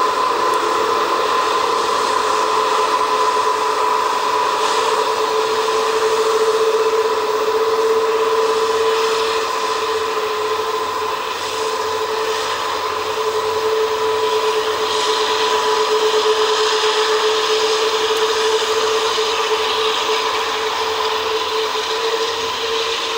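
Airbus A380's four jet engines running at low taxi power: a steady whine with two held tones over a jet hiss, the hiss swelling slightly in the second half as the aircraft turns away.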